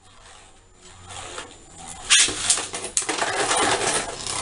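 Beyblade Burst spinning tops, Judgement Joker among them, whirring in a plastic stadium. From about two seconds in they collide, with loud clashing and scraping and sharp clicks.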